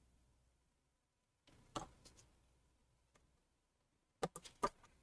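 Small, sharp clicks and taps of repair tools against tiny phone parts: one click about two seconds in, then a quick run of four near the end.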